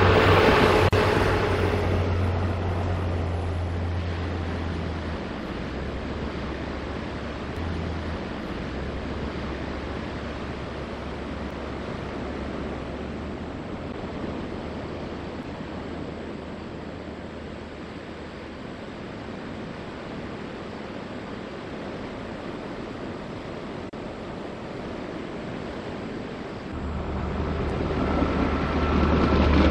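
Steady wash of sea surf, a continuous noisy hiss with a low hum underneath. A passing rail vehicle fades out over the first few seconds, and another swells in near the end.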